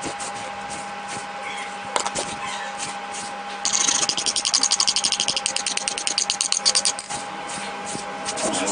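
Chunks of khadi mitti (chalk clay) being crumbled: scattered light clicks, then a dense run of rapid crisp crackles for about three seconds in the middle.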